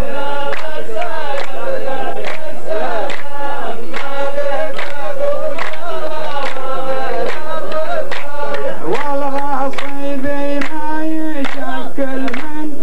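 A row of men chanting a line of muhawara poetry in unison, with long held notes. Sharp hand claps repeat through it at a steady beat.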